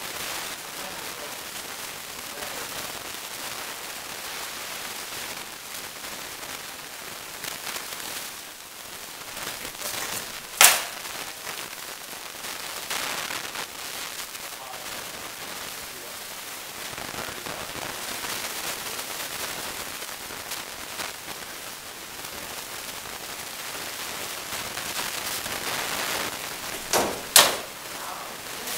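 Sharp, loud cracks of rattan weapon blows landing in armored combat: one about a third of the way in and two in quick succession near the end, over a steady hiss of hall noise.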